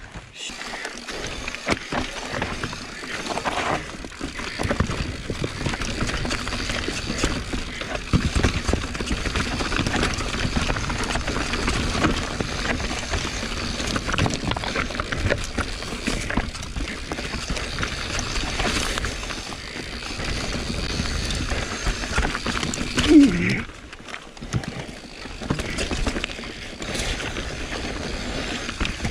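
Mountain bike rolling along a dirt and rock trail: steady tyre noise with many small knocks and rattles from the bike over the rough ground. A brief vocal shout from the rider comes about three-quarters of the way through.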